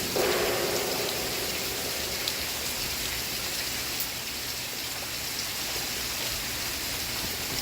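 Steady rain falling, an even hiss with a couple of faint drop ticks.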